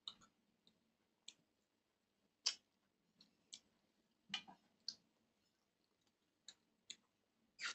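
Close-miked eating sounds: sparse, faint wet mouth clicks and smacks of a man chewing and eating with his fingers, about ten irregularly spaced, the loudest a little over two seconds in.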